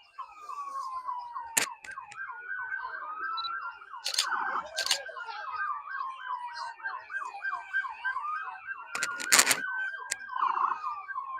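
Emergency-vehicle sirens, more than one at once: a slow rising-and-falling wail overlapped by a fast yelp of about three sweeps a second. A few sharp clicks cut through, the loudest a cluster about nine seconds in.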